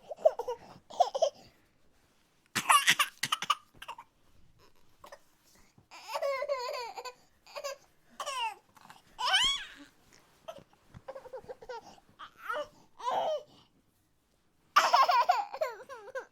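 Exaggerated human crying sound effect: a run of sobbing and wailing cries in separate bursts, some wavering and some gliding up and then down in pitch.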